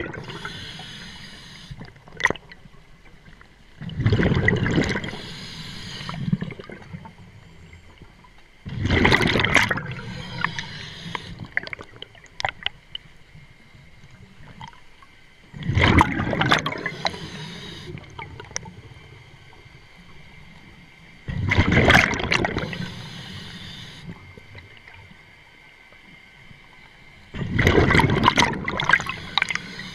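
A scuba diver breathing through a regulator underwater: the exhaled air bubbles out in a loud gurgling rush about every five to six seconds, five breaths in all, with a quieter hiss between them.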